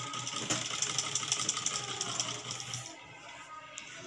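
A black straight-stitch domestic sewing machine running, stitching through fabric with a fast, even clatter that stops about three seconds in.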